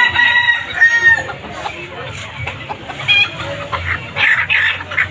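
Chickens clucking and calling, with a long drawn-out call over about the first second and a short high call about three seconds in. Near the end come a few harsh, noisy bursts.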